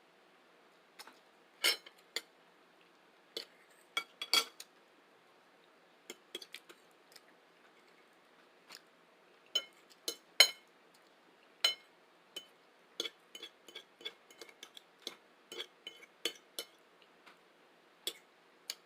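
Close-up eating sounds: a string of sharp, irregular clicks and clinks, some with a brief ring, from utensils on the dish and the mouth.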